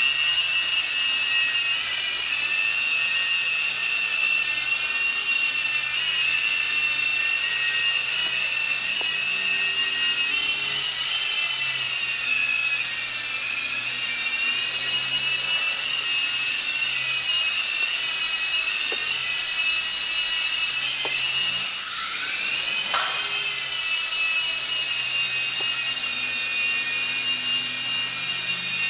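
Small electric motors and rotors of a 3.5-channel toy remote-control helicopter, running with a steady high whine that wavers slightly in pitch. About three-quarters of the way through the whine dips sharply in pitch and climbs back up as the throttle is eased off and opened again.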